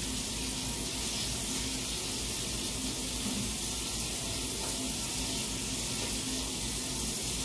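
Kitchen sink faucet running in a steady stream while hands are washed under it.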